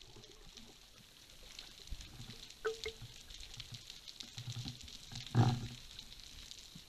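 Underwater sound during a breath-hold dive: a faint steady crackle of fine ticks, with a few short low sounds, the loudest about five and a half seconds in.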